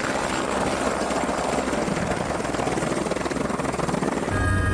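Helicopter in flight, its rotor beating fast and steady over engine noise; the sound cuts off abruptly near the end.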